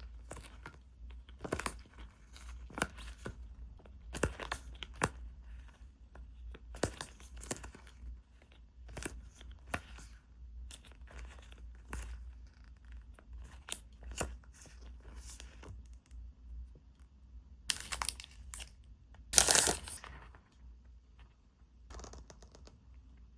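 Packaging being torn open and handled: a string of short rips and crinkles, with two louder, longer tears near the end.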